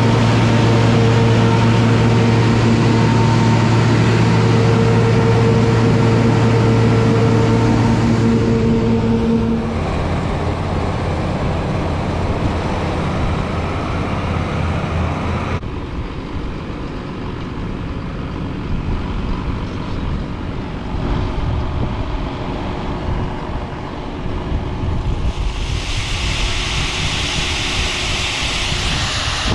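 Amadas peanut combine running up close with a steady hum for about the first ten seconds. Then comes the engine of a John Deere tractor pulling a peanut dump cart. Near the end a rushing hiss of peanuts pours from the raised dump cart into a trailer.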